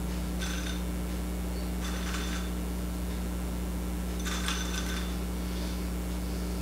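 Croutons clicking faintly against a small glass bowl as they are picked out and dropped onto soup, in three brief clusters of small clicks. A steady low hum runs underneath.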